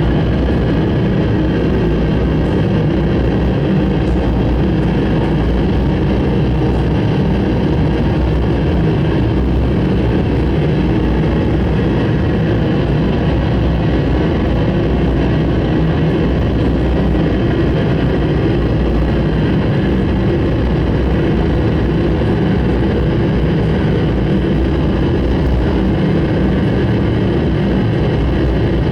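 Harsh noise music: a loud, unbroken wall of dense, rumbling distorted noise, heaviest in the low end, with no pauses or changes.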